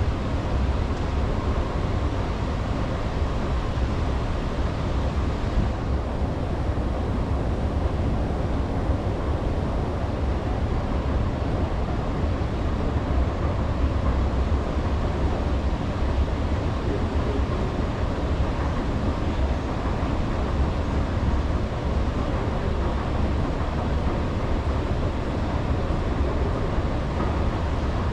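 Long metro escalator running, a steady low rumble that does not change.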